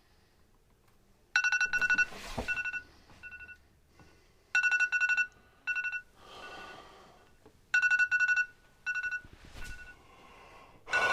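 iPhone alarm going off: phrases of rapid electronic beeps, each followed by a few shorter beeps. The phrases repeat about every three seconds, the first starting about a second and a half in.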